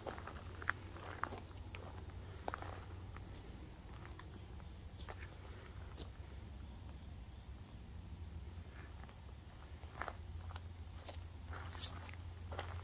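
Steady high-pitched chorus of insects such as crickets, with scattered footsteps and small clicks.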